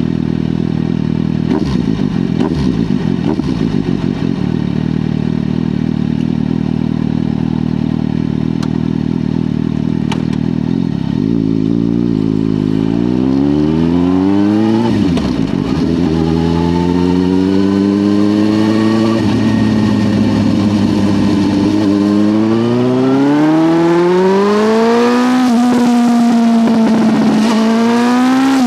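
Suzuki GSR 750 inline-four through a Dominator aftermarket exhaust, idling steadily for about eleven seconds. The revs then climb in four long rises, each ending in a sudden drop in pitch, like a rider accelerating up through the gears, and settle to a steady higher note near the end.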